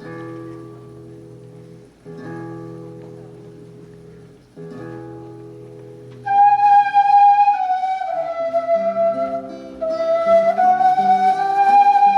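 Andean quena music. Three strummed acoustic guitar chords ring out and fade, then about six seconds in a quena enters loud over the guitar with a sustained, gently gliding melody.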